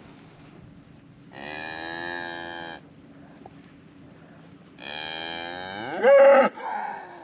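Highland cattle mooing: two long moos, the second longer and louder, with a short break near its end.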